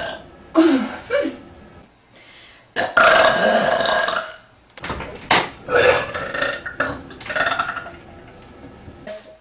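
A woman burping: a couple of short belches, then one long belch about three seconds in, followed by several shorter ones, with a few sharp clicks between them.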